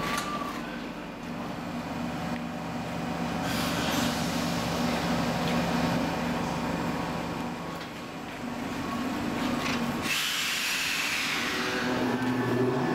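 Heritage 1500 V DC electric train running with a steady hum. About ten seconds in, a whine falls in pitch over a couple of seconds.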